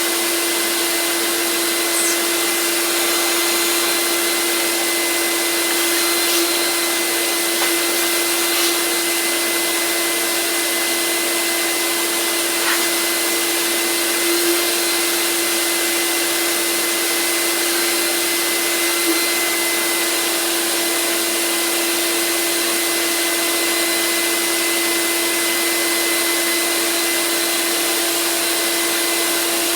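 A 48-year-old shop vac running steadily, its motor holding one even pitch, with a few faint clicks along the way.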